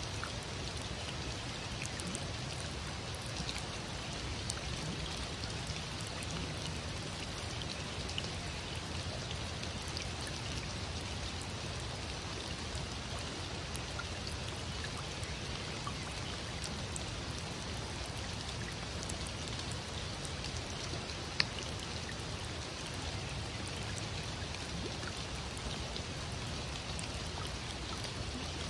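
Rain falling on the river and the wet sand: a steady hiss dotted with many small drop ticks, with one sharper tap about two-thirds of the way through.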